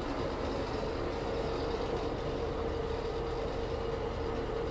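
Old Fasco ceiling exhaust fan running with a steady hum and a constant rattle.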